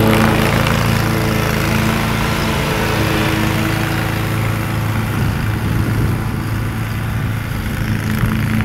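Commercial lawn mower engine running steadily under load while mowing.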